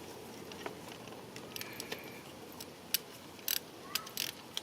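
Scattered metallic clicks and clinks of a 14 mm socket and extension on a ratchet being worked into a spark plug well, mostly in the second half.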